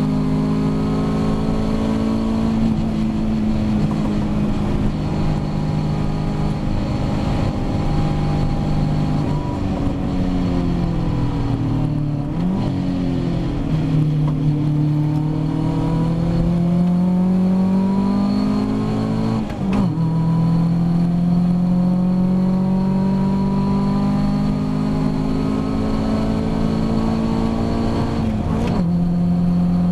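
Ginetta G40 race car engine heard from inside the cockpit. Its note falls as the car slows for a corner, then rises as it accelerates out. Two upshifts, about two-thirds of the way in and near the end, each drop the pitch suddenly before it climbs again.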